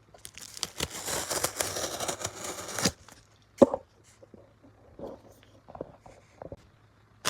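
A mailed package being torn open by hand: one long tearing rip lasting about two and a half seconds, a sharp knock a little later, then small rustling and tapping as the packing is handled.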